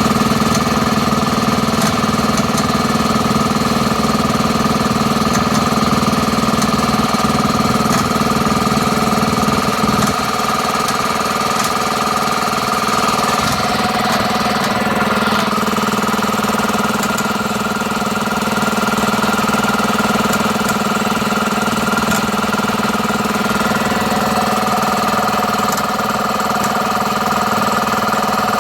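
A compressor running steadily: a loud, even hum with a strong whine above it, recorded as an unwanted noise from the compressor. The level drops slightly about ten seconds in.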